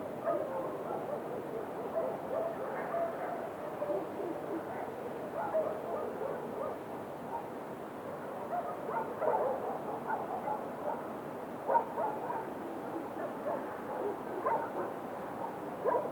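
Dogs barking on and off, short barks scattered throughout over a steady background hiss, with one louder bark about three quarters of the way through.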